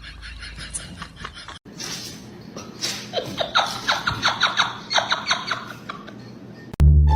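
A person laughing in quick repeated bursts, about four a second, broken by a cut about one and a half seconds in and louder from about three seconds. Plucked string music starts abruptly near the end.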